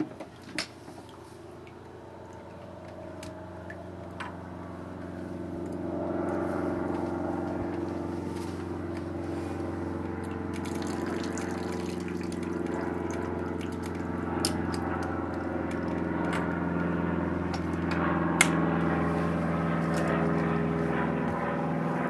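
An engine running with a steady drone that grows louder over the first several seconds and then holds, with a few light clicks or knocks over it.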